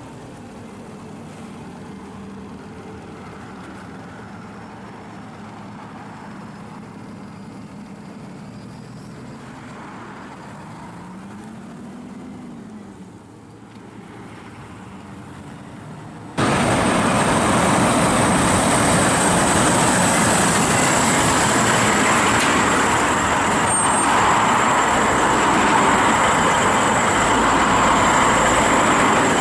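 A DAF rigid refrigerated lorry drives past and away, its diesel engine at moderate level with a brief rise and fall in engine pitch. About 16 seconds in, the sound cuts abruptly to a much louder, close Volvo FH tractor unit engine running as the truck moves past, with a steady high-pitched whistle over it.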